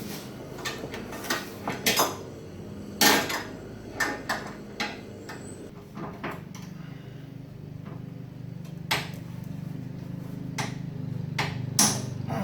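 Metal hand tools clinking and knocking: an irregular series of sharp metallic clicks and taps as wrenches and sockets are handled on the car's bolts. A steady low hum grows underneath from about halfway.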